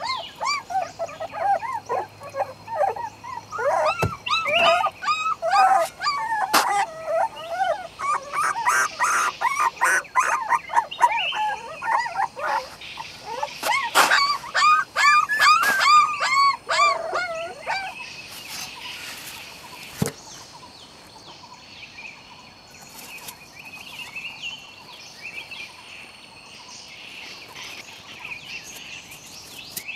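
A litter of young puppies whimpering and yelping, many short rising-and-falling cries in quick succession, with a few sharp knocks among them. After about eighteen seconds the cries stop, leaving faint high chirping in the background.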